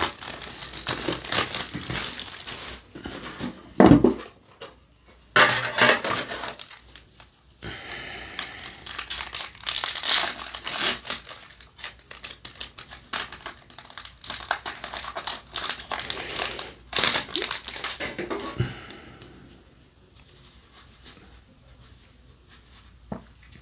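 Plastic shrink wrap crinkling as it is pulled off a Yu-Gi-Oh! metal tin, then a foil booster pack being torn open and crinkled, with a sharp knock about four seconds in. The crackling dies down to quiet card handling near the end.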